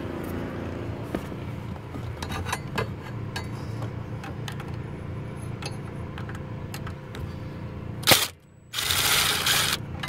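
Light, irregular clicking of a ratcheting driver turning a T27 Torx bit to back out the ignition switch's screws on a 2002 Ford F-150 steering column, over a steady low hum. About eight seconds in there is a sharp knock, then a loud rushing noise to the end.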